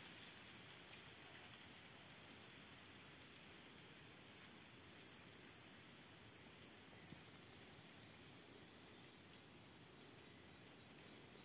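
Faint, steady chorus of night insects, a continuous high-pitched trilling.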